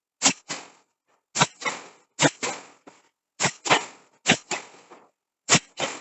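Hammer blows on steel being forged, about one a second, each sharp strike followed a quarter second later by a lighter second hit.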